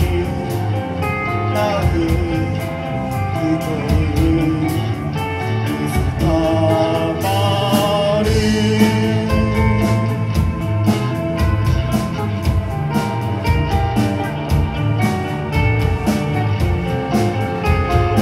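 Live band performing: a male vocalist sings into a microphone over electric guitar and a steady drum beat.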